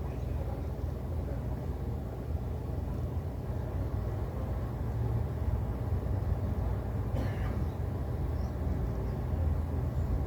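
Steady low outdoor rumble, with one short harsh bird call about seven seconds in.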